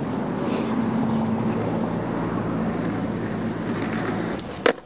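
Steady low rumble of motor-vehicle traffic or an idling engine, with a faint hum in it. It cuts off abruptly near the end with a single sharp click as the camcorder recording stops and restarts.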